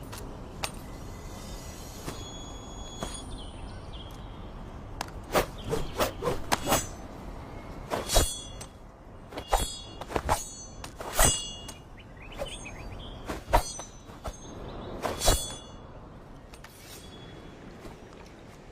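Katana blade clanging: a series of about eight sharp metal strikes, each with a brief high ring, starting about five seconds in and stopping about a second after the fifteen-second mark.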